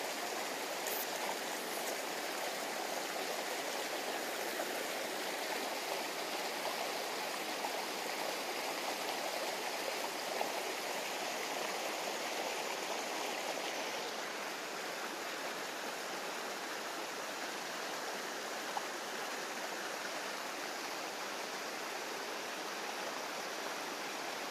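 Shallow rocky stream running over boulders and small rapids: a steady wash of flowing water.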